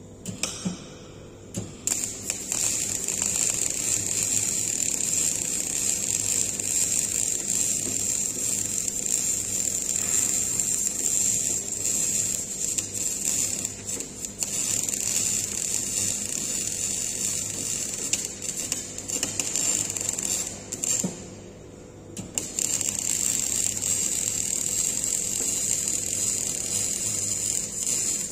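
MIG welding arc on a steel pipe fitting: a couple of short starts, then a steady crackling hiss. The arc stops for about a second about three quarters of the way in, then is struck again.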